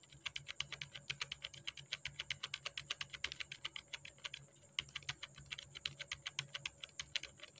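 Computer keyboard keys struck rapidly and repeatedly, several clicks a second, with a short break about four seconds in and stopping near the end. This is Ctrl+V pressed over and over to paste the same text again and again.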